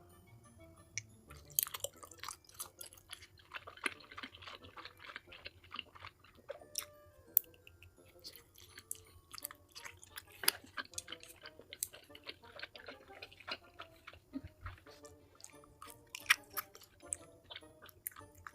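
Close-miked chewing of food, with many wet smacking and clicking mouth sounds throughout.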